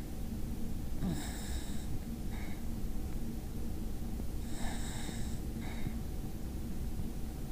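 Basenji dog snoring in its sleep: two wheezy snoring breaths about three and a half seconds apart, each with a high whistle, each followed by a shorter, fainter one.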